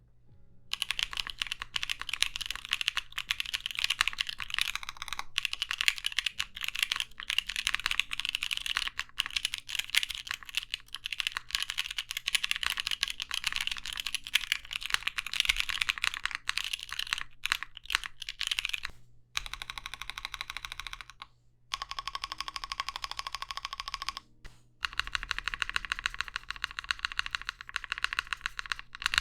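Mechanical keyboard typing test: fast, continuous key presses on GAZZEW Boba U4T tactile switches in a Tofu 60 with an aluminum plate, DZ60 hot-swap PCB, and case and PCB foam, giving a deep thocky clack. The typing breaks off briefly a few times in the second half.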